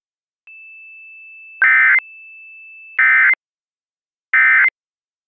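Emergency Alert System end-of-message data signal: three short, loud electronic screeches about a second and a half apart, marking the close of the alert. A faint steady high tone sounds beneath the first two.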